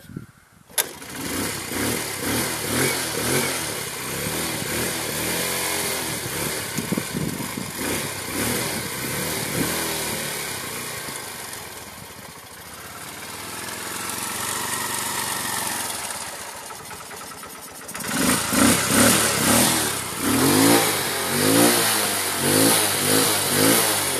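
Car engine starting about a second in, then running with its revs rising and falling, and quick repeated revs over the last six seconds.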